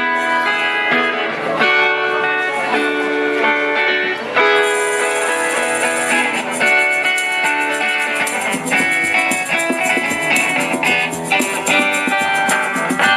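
Instrumental guitar music with no singing: plucked and strummed guitar notes. A fast, even, high-pitched percussion rhythm joins about four and a half seconds in.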